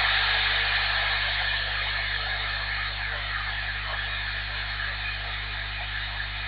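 Steady static hiss from an AnyTone AT-5555N CB radio's speaker, tuned to 27.010 MHz upper sideband, with a steady hum underneath. It is the receiver's band noise while a weak 5-watt mobile station far away is at the noise floor, its signal lost in the hiss.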